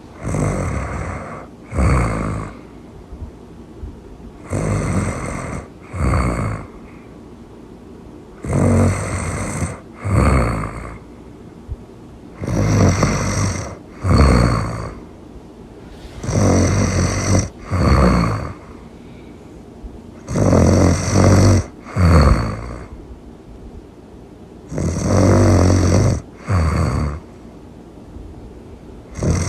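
Loud snoring in a steady rhythm: each breath is a long snore followed at once by a short one, and the pair repeats about every four seconds, seven times.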